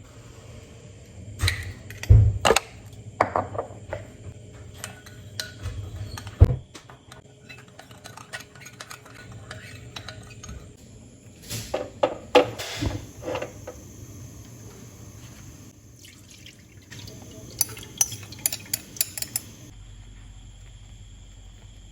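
Dishes and cutlery clattering: scattered clinks and knocks in several clusters, with one loud knock about six seconds in and a quick run of light ticks near the end.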